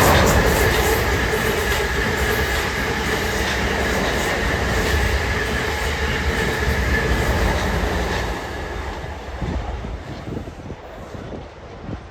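South Western Railway Class 444 Desiro electric multiple unit running through, a dense rumble with a steady high wheezing whine over it. It fades away about eight to nine seconds in as the train passes.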